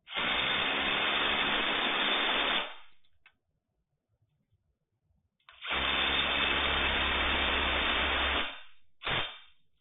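1/4-inch impact driver running nuts down on a pipe elbow fitting's bolts, in two bursts of about three seconds each, then a brief blip near the end.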